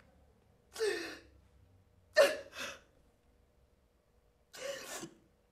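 A woman sighing and gasping: three short breathy sounds with silence between them, the second the loudest.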